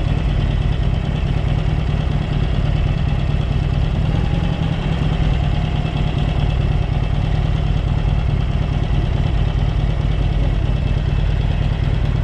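Vehicle engine running steadily, with a strong low rumble.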